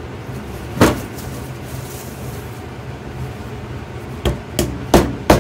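A single knock about a second in. Near the end, a wooden rolling pin starts smacking a disc of cold pastry dough on a marble slab, about three strikes a second, to flatten it before rolling.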